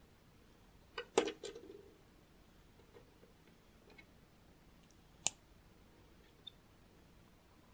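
Small plastic LEGO bricks clicking as they are handled and pressed together: a quick cluster of clicks with a short rattle about a second in, a few faint ticks, then a single sharp snap about five seconds in.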